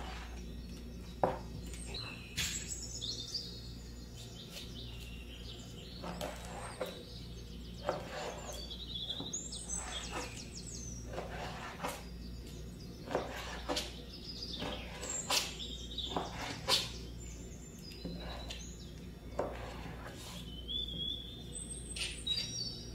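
Forest birds chirping and trilling, a birdsong sound-effect track over a low steady hum, with a dozen or so sharp knife strokes through raw beef liver onto a plastic cutting board at irregular intervals.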